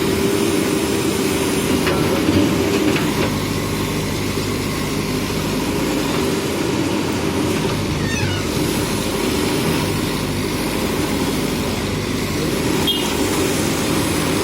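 JCB backhoe loader's diesel engine running steadily while at work, with a faint falling whistle about eight seconds in and a small click near the end.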